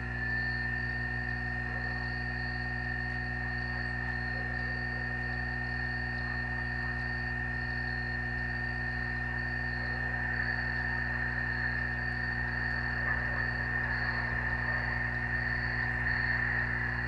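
A steady insect chorus: a continuous high trill with a faster pulsing, higher note above it, swelling a little about ten seconds in, over a constant low hum.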